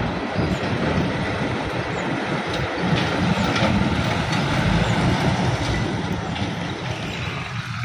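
A train passing at speed over the level crossing: a continuous loud rush of wheels on rails with a low rumble underneath.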